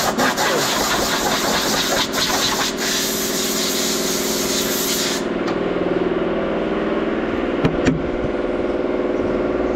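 An engine running steadily at idle. A loud hiss lies over it for the first half and stops abruptly about halfway through. Two short knocks come near the end.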